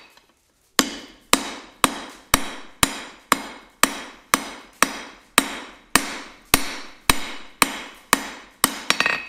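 Hand hammer striking hot steel bar stock on an anvil, flattening the forged blank for a pair of tongs. A steady run of blows comes at about two a second, each ringing briefly, starting just under a second in.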